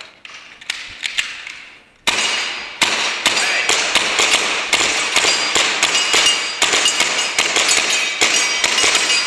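Gas-blowback airsoft pistols firing rapidly. After a few faint clicks, a dense string of sharp cracks starts suddenly about two seconds in and keeps going.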